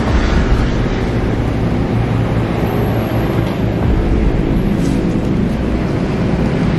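Steady, loud motor-vehicle rumble with a broad hiss over it.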